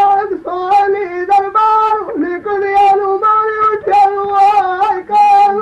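Punjabi dhola folk singing from an old cassette recording: a single high voice holds a string of long, level notes, each broken off briefly before the next.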